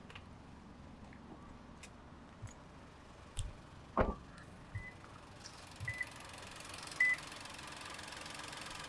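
A car door shuts about four seconds in, then three short high beeps about a second apart. Under them the Perodua Ativa's 1.0-litre three-cylinder turbo petrol engine is idling, growing louder toward the end.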